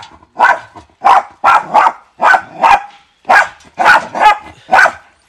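Dog barking in a rapid string of about nine short, sharp barks, close up.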